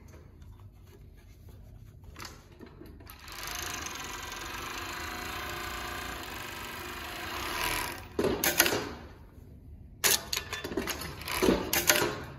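JUKI MF-7523 three-needle coverstitch industrial sewing machine running at a steady speed for about four seconds as fabric is fed through, then stopping. This is followed by loud rustling and knocks as the sewn fabric is handled and pulled out.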